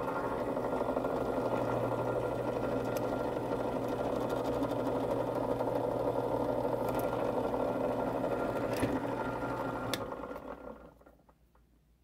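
Benchtop drill press motor running steadily with a constant hum. It is switched off about ten seconds in and winds down over about a second.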